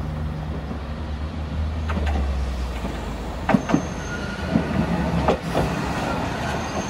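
Tosaden streetcar no. 607 rolling in to the stop, with a steady low running hum and a few sharp clacks of its wheels over rail joints in the middle. Brief high wheel squeals come in the middle and again near the end as it pulls up.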